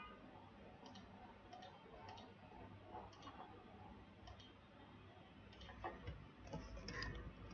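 Faint, scattered computer keyboard and mouse clicks over quiet room tone, coming more often near the end.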